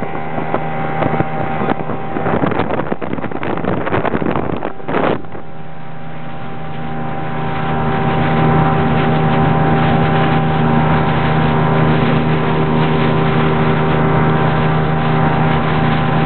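Outboard motor of a Zodiac inflatable boat running under way, with wind noise on the microphone. The motor's steady hum grows louder and more even about halfway through.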